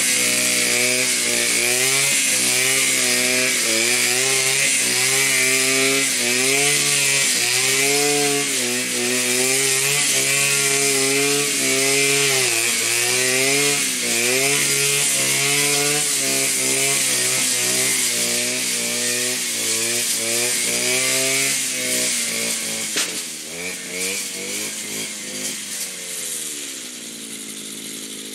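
Blade Alpin 520 two-stroke brushcutter mowing tall grass with a metal blade, its engine speed rising and dipping over and over as the blade bites into the grass. About 22 seconds in the throttle comes off and the engine drops to a lower, quieter run.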